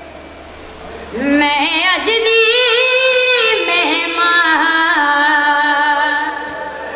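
A boy's voice chanting a Muharram lament, entering with an upward slide about a second in and then holding one long ornamented line with wavering pitch that fades near the end.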